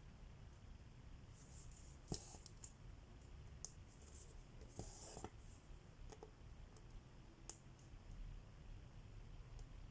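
Faint cross-stitching: a needle clicking as it pierces the fabric and thread rustling as it is drawn through, in scattered soft ticks and short swishes every second or so. The sharpest click comes about two seconds in.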